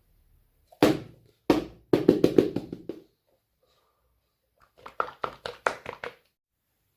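Sharp tapping and clicking from small objects being handled: two single knocks, then two quick runs of rapid taps.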